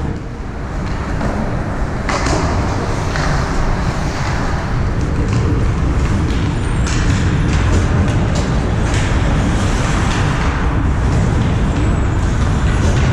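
Ice hockey game ambience in an arena: a steady low rumble with short scraping sounds every second or two, typical of skates cutting the ice.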